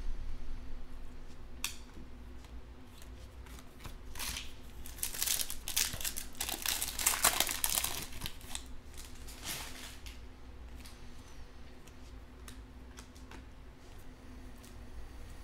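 A Panini Mosaic football card pack's foil wrapper is torn open and crinkled for several seconds in the middle. Before and after, cards click and slide against each other as they are flicked through by hand.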